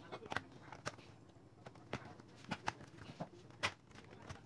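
Dell Inspiron 5391's bottom cover being pried off by hand: a string of irregular sharp clicks as its snap clips release, the loudest a little past the middle.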